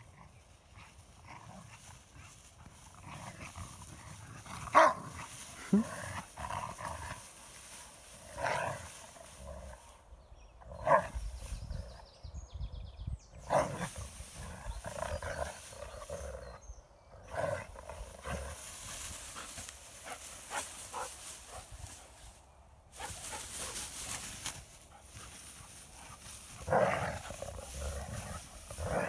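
Dogs playing together, giving short, scattered barks and growls at irregular intervals.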